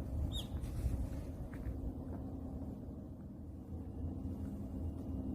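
Steady low rumble with a droning hum under it. A short, high bird chirp comes about half a second in, and a couple of faint calls follow a second or so later.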